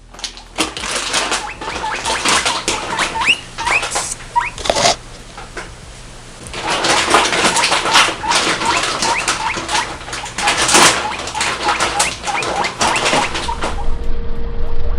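Guinea pigs wheeking: many short, rising squeals over rustling and clicking, with a brief lull partway through. This is the call guinea pigs make when hungry, begging for food.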